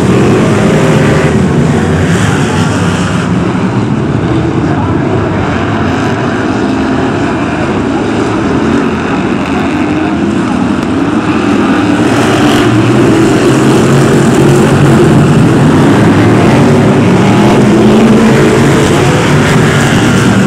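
A pack of BriSCA F1 stock cars' V8 engines racing, several loud engine notes overlapping and rising and falling as the cars lap the oval.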